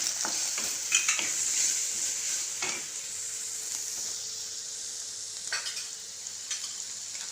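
Tempering sizzling in hot oil in a kadai: mustard seeds, curry leaves, garlic and turmeric frying with a steady hiss as they are stirred, with a few sharp clicks, the loudest near the start and about a second in.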